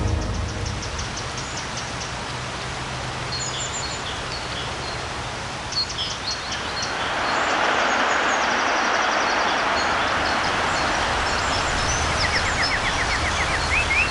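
Water rushing down a small woodland waterfall, a steady hiss that grows louder about halfway through, with birds chirping over it. Near the end a bird gives a quick run of short rising chirps.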